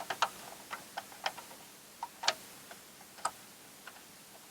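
Irregular light clicks and taps of small plastic parts being handled, as an LED bulb is fitted into an interior light housing, with the loudest clicks about two and three seconds in.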